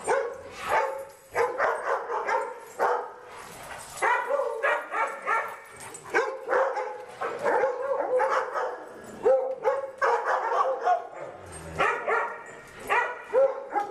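Several dogs barking and whining excitedly, many short pitched calls one after another with brief gaps.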